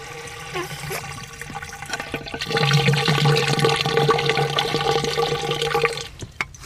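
Water from a garden hose nozzle pouring down into a 4-inch PVC downspout drain pipe, rushing and splashing with a steady low tone under it. It grows louder about two and a half seconds in as the pipe fills, and cuts off about six seconds in as the hose is pulled out. The pipe fills and holds the water because it has sunk and lost its slope.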